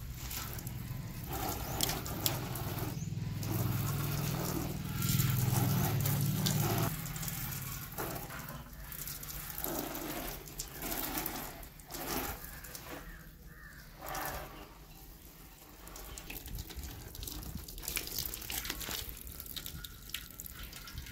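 A stream of water from a garden hose splashes and patters over a motorcycle's fuel tank, seat and side panels as the bike is rinsed with plain water. The splashing surges and fades as the stream moves, and is heaviest and loudest in the first several seconds.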